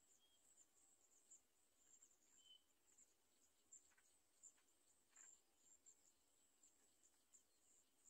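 Near silence, with faint, high-pitched insect chirping running on irregularly and a few faint ticks.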